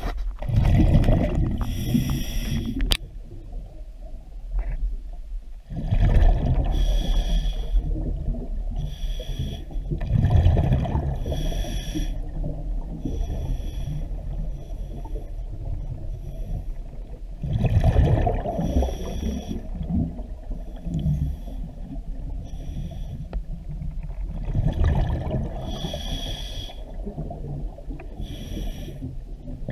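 Scuba diver breathing through a regulator underwater: short hissing inhalations alternating with longer rumbling bursts of exhaled bubbles, in a slow cycle that repeats every several seconds.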